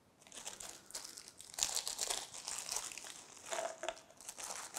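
Small clear plastic zip-lock bag crinkling in the hands in uneven bursts as it is handled and opened.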